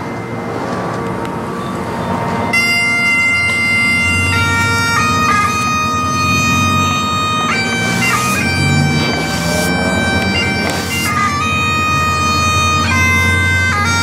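Bagpipes playing a slow tune. The drones sound first, and the chanter melody comes in about two and a half seconds in, moving between long held notes over the steady drones.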